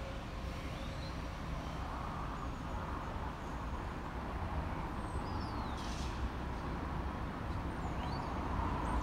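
Steady low rumble of a Class 172 diesel multiple unit standing at the station platform with its engines running, with a few short bird chirps in the middle and near the end.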